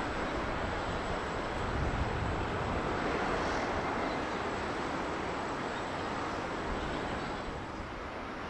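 Four-engined Boeing 747's jet engines running on the landing roll, a steady rumble that eases slightly near the end.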